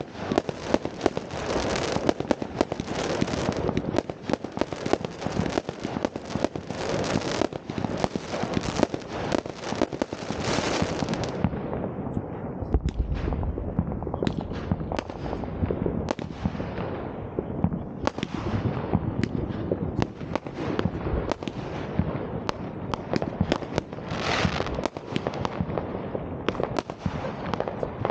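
Fireworks going off: a dense, unbroken run of bangs and crackling for about the first ten seconds, then thinner, separate bangs with short fading tails.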